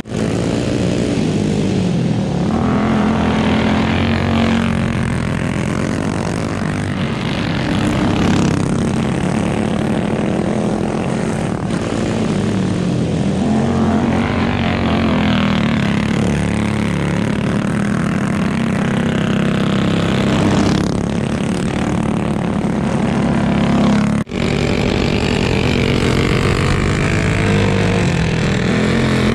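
Go-kart engines running flat out on a dirt track, their pitch swelling and falling several times as karts race around the course. About 24 seconds in, a sudden cut brings a kart engine in close, heard from on board.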